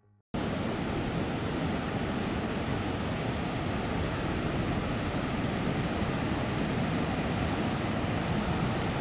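Ocean surf breaking on a sandy beach: a steady, even wash of waves that cuts in suddenly a fraction of a second in.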